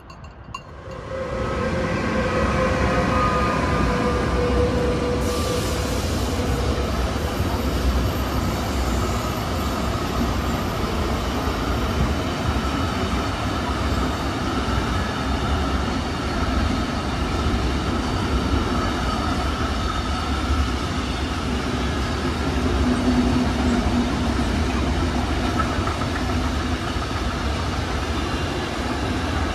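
Long freight train of container and tank wagons passing at speed: a loud, steady rumble of wheels on rail that starts abruptly about a second in. For the first several seconds a few high steady tones ring over the rumble.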